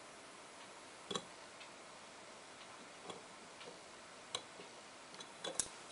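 A few faint metallic clicks from a piston ring expander and a steel compression ring as the second compression ring is spread and slipped into its groove on a forged Wiseco piston. The clicks are spaced a second or more apart, with a small cluster near the end.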